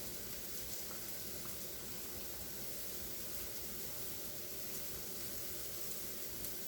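Steady faint hiss with a low hum underneath, with a couple of faint clicks.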